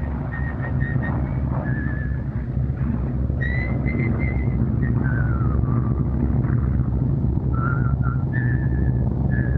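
A person whistling a tune, held notes stepping up and down in pitch, over a steady low rumble.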